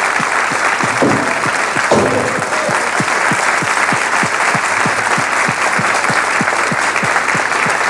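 Large studio audience applauding and cheering. From about three seconds in a steady beat of about four thumps a second runs under the clapping.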